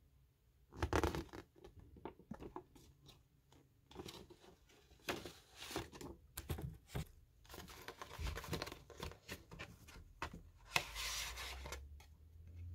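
Glossy paper lyric insert handled by hand as it is unfolded and turned: irregular rustling and crinkling with small sharp clicks, loudest about a second in and again around eleven seconds.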